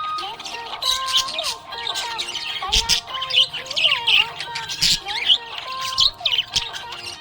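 Budgerigar chirping and warbling: quick high chirps and squawks mixed with short up-and-down gliding notes, with no pause between them.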